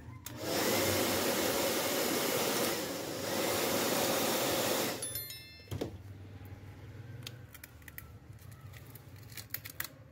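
Hot-air heat gun blowing onto a phone's back panel to soften its adhesive, a steady rushing hiss that dips briefly midway and cuts off about five seconds in. Afterwards, light clicks and taps as the back panel is handled and pried up.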